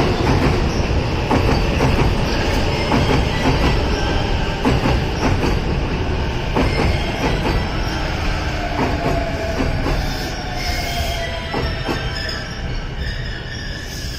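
A Chuo Line E233-series electric commuter train pulling out, its cars rolling past close by with a rumble and a clatter of wheels over rail joints. A tone climbs slowly as the train gathers speed, and the sound eases off near the end as the last car goes by.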